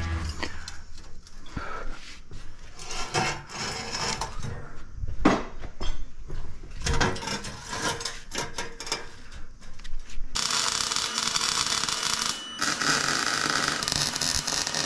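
Pieces of steel section handled and fitted together, irregular metal knocks and scrapes for about ten seconds. Then a steady crackling hiss of arc welding starts and runs on, with a brief break about two seconds later.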